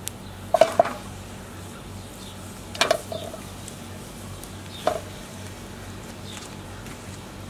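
Pieces of lamb dropped into a large aluminium cooking pot, knocking against the metal with a short ring: a quick cluster of clinks about half a second in, then single knocks near 3 s and 5 s.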